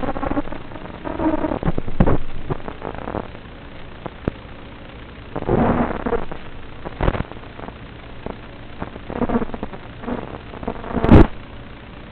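FPV racing quadcopter's motors and propellers in flight, a rough, distorted rushing noise that surges again and again as the throttle changes, the loudest surge about eleven seconds in.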